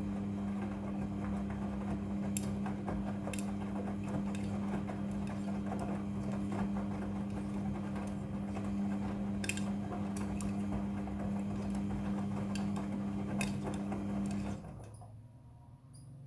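Midea front-loading washing machine running with a steady motor hum and scattered light clicks. The hum cuts off suddenly near the end as the drum motor stops.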